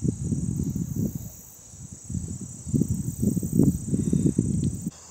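Wind buffeting the microphone in irregular low rumbles, in two spells with a short lull between, stopping abruptly near the end. Behind it runs a steady high-pitched drone of insects.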